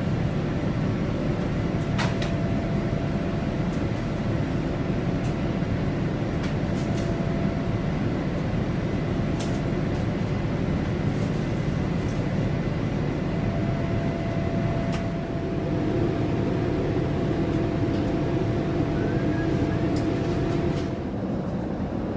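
Steady cabin noise of a Boeing 787-8 airliner in motion: a dense rumble and rush of air with a faint steady hum and a few small clicks. The sound changes abruptly near the end.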